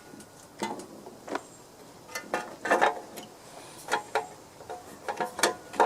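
Irregular clicks and knocks of parts and tools being handled as a Briggs & Stratton mower engine is put back together after its sticking choke was freed.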